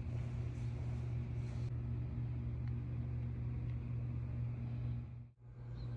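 Steady low mechanical hum of workshop machinery, which cuts out for a moment a little after five seconds in and then resumes.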